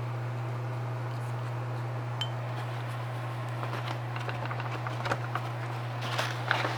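Steady low hum of an electric fan. From about halfway through come faint light clinks and taps, growing a little busier near the end.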